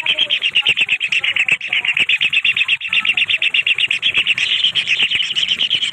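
Kingfisher chicks begging: a continuous rapid series of short high chirps, about ten a second.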